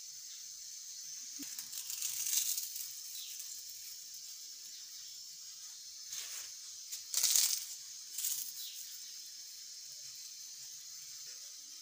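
Crisp fried dough pieces crushed between the fingers and scattered over a bowl of yogurt: several dry crackling crunches, the loudest a little after seven seconds in, over a steady high hiss.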